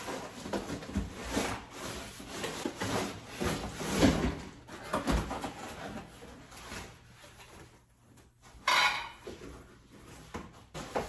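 Cardboard packaging of a cookware set being handled: box flaps opened and a cardboard insert pulled out, giving irregular rustling, knocks and scrapes, with a louder scrape of cardboard sliding out near the end.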